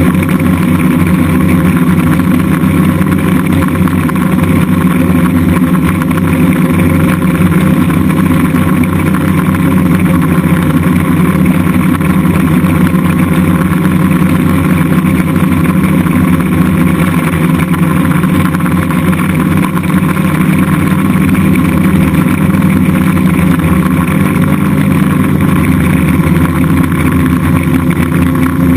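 DJI Flame Wheel F550 hexacopter's six electric motors and propellers buzzing steadily in flight, heard from on board, with a slight change in pitch near the end.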